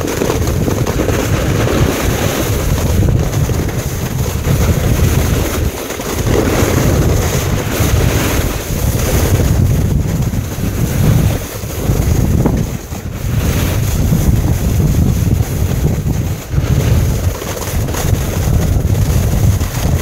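Wind rushing over the microphone of a camera carried while snowboarding downhill, mixed with the scraping hiss of the snowboard sliding over snow. The level rises and dips as the speed and wind change.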